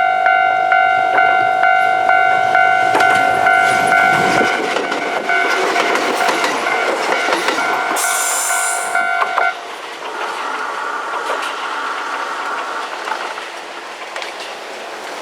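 Japanese level-crossing warning bell dinging steadily as Kintetsu electric trains run over the crossing, their wheels clicking over the rail joints. The bell stops about nine and a half seconds in and the train noise then fades.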